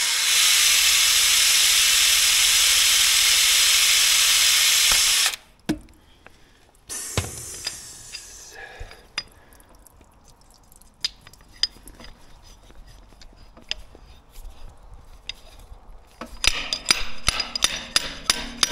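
Water spraying hard out of a leaking freeze plug in the small-block Chevy's cooling jacket, a loud steady hiss that stops suddenly after about five seconds, then a second shorter spurt. Near the end comes a run of sharp, evenly spaced clicks.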